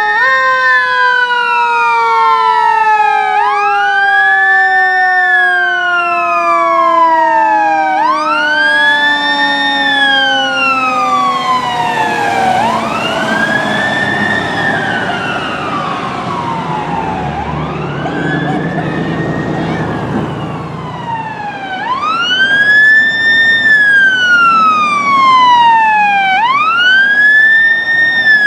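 Fire apparatus siren on a wail, rising and falling about every four seconds, while a second, lower siren tone slowly falls and fades over roughly the first twelve seconds. Around two-thirds of the way through, the rumble of the rig's engine swells as it goes by, and the wail briefly blurs.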